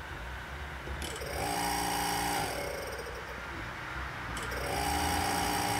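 Opened-up 1970s hermetic freezer compressor buzzing in two spells of about a second and a half each, the first starting about a second in and the second a little past four seconds. It is the kind of sound that, from a refrigerator, means something is wrong with it.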